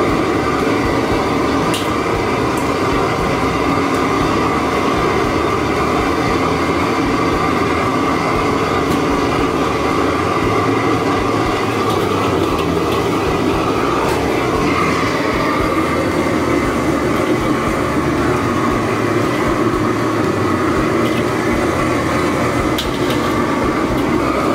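Commercial gas wok burner running at full flame: a loud, steady rushing noise, with a few faint clicks over it.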